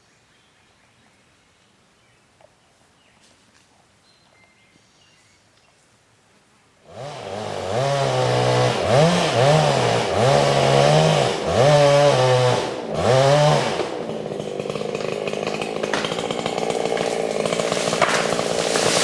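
Husqvarna 395XP two-stroke chainsaw, ported, coming in loud after several quiet seconds. It is revved up and down five or six times, then held steady at high revs.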